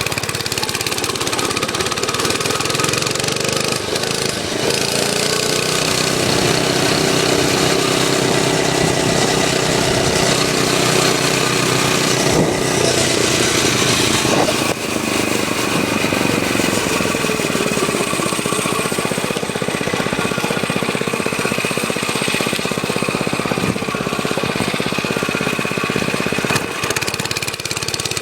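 Motovox mini bike's small single-cylinder four-stroke engine running while ridden, its pitch climbing about five seconds in, holding, then dropping off around fifteen seconds in as it slows.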